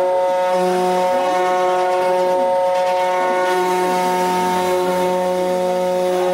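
CNC wood router running, its spindle giving a steady whine, with a lower hum that comes and goes as the machine moves and cuts.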